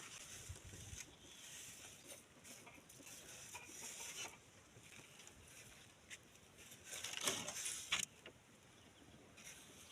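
A cobweb brush scraping and rustling over a wall as thick cobwebs are swept off, in short irregular strokes with one louder, longer scrape about seven seconds in.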